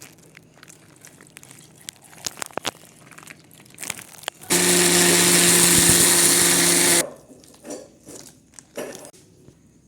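Electric blender motor running for about two and a half seconds, blending a banana milkshake, then cutting off abruptly. Before it come light clicks and knocks of handling.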